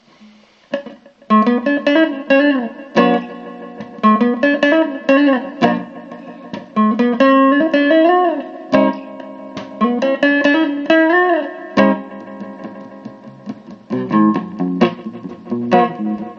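Electric guitar chords played through an amplifier, struck one after another from about a second in, with some notes bent up in pitch and let back down.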